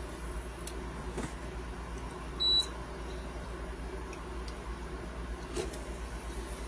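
A single short, high electronic beep about two and a half seconds in, over a steady low hum and a few faint clicks.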